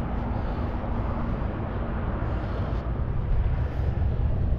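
Steady low rumble of passing road traffic, with a faint engine tone that fades out about a second in.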